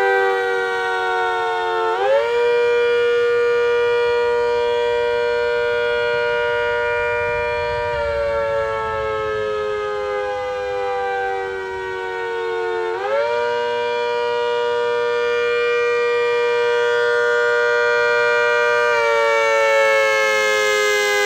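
Rotating siren sounding a chord at full blast, its pitch sagging slowly and then snapping quickly back up twice, holding steady for several seconds after each rise.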